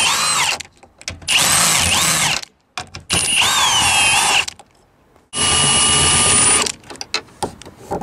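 Power drill with a 10 mm socket running out the mounting screws of a Dodge Ram's side mirror, in four short trigger pulls of about a second each, the motor whine rising and falling with each pull. Lighter clicks and handling follow near the end.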